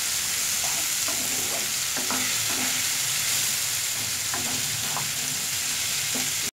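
Raw green mango pieces sizzling in hot mustard oil in a frying pan, stirred with a wooden spatula that scrapes and taps the pan a few times.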